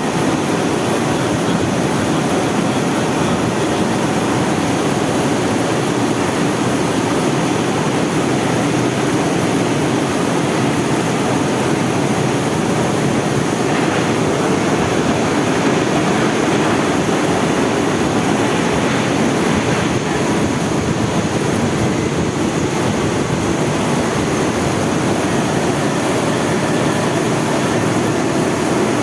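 CNC lathe running during a machining job, a loud steady mechanical noise without breaks.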